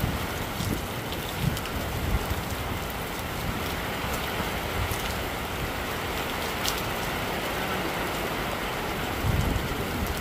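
Heavy rain falling in a downpour: a steady hiss with scattered sharp drop hits and a few dull low thumps.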